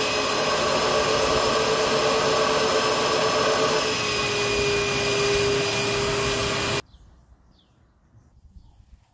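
Carpet-cleaning extraction machine running, its vacuum motor a steady whine over a rush of air as the upholstery wand draws across a mattress. The pitch drops slightly about four seconds in, and the sound cuts off suddenly about seven seconds in, leaving faint rustling.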